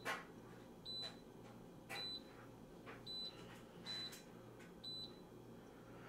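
IAGREEA portable countertop dishwasher's touch control panel beeping: five short, high beeps about a second apart, one for each press of the program button as it steps through the washing modes.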